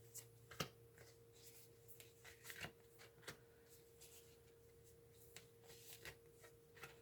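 Near silence with a faint steady hum, broken by scattered faint taps and rustles of oracle cards being shuffled and drawn.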